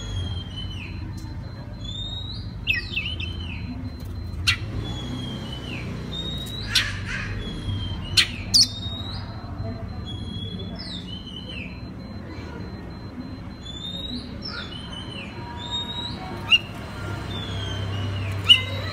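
Oriental magpie-robin singing: a run of short whistled notes that slide up and down, broken by several sharp, loud chips, over a steady low hum.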